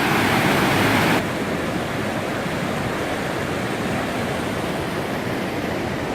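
Steady rushing of river water pouring over a cascade; about a second in it drops to a slightly quieter, duller rush.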